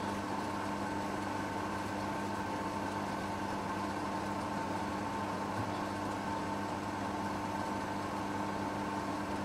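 Steady machine hum made of several fixed pitched tones, with no distinct knocks or clicks.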